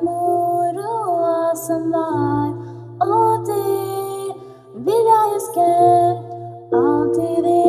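A slow song sung solo in long held notes, several phrases starting with a slide up into the note.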